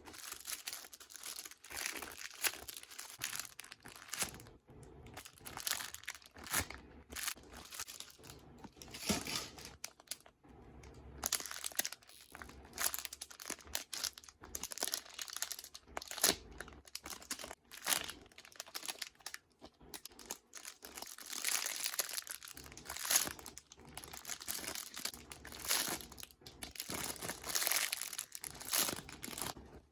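Plastic crinkling and rustling in quick, irregular bursts throughout, as squishy toys are handled in their plastic packaging.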